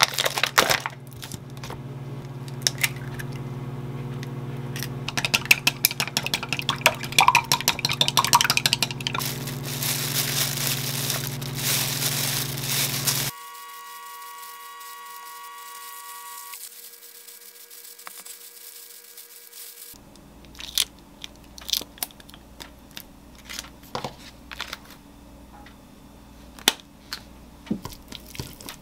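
Plastic crab-stick packaging crinkling and tearing open over a steady low hum, loudest near the end of the first half. After a cut and a quieter stretch, wooden chopsticks tap and scrape against a glass bowl as shredded crab stick is mixed.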